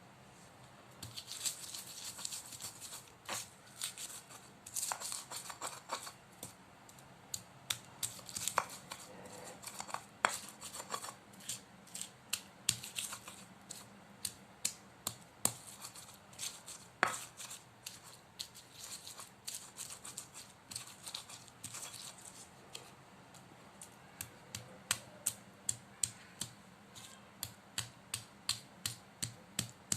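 Spice paste being ground by hand with a pestle in a cobek (Indonesian mortar): a run of sharp taps and scrapes, becoming steadier near the end at about two strokes a second.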